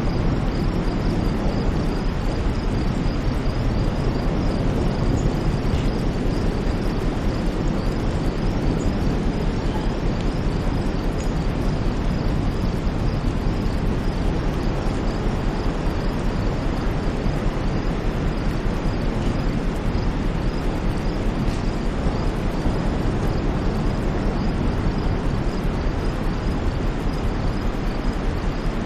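Steady rushing white noise, deepest in the low end and even in loudness with no swells, with a faint high-pitched pulsing chirp running over it.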